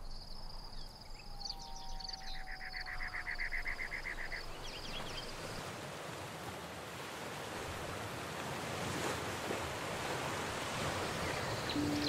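Outdoor nature ambience. For the first few seconds there is a steady high insect trill and a fast pulsed chirping, then an even rushing noise takes over and grows slightly louder.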